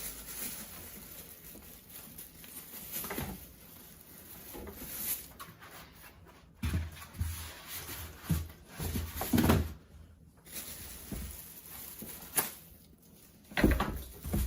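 Rustling and scattered light knocks and scrapes as a PC case is handled and unpacked from its packaging.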